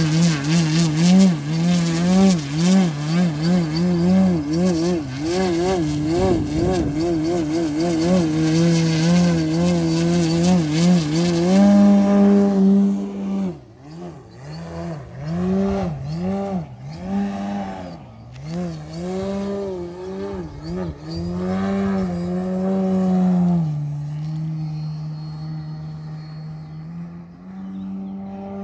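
Dualsky GA8000 electric motor turning a 28-inch Xoar propeller on a 110-inch Extreme Flight Yak 54 aerobatic model plane: a loud propeller drone whose pitch wavers rapidly as the throttle is worked in a nose-up hover. After about twelve seconds it rises and falls in a series of swoops, then settles to a steadier, lower tone near the end.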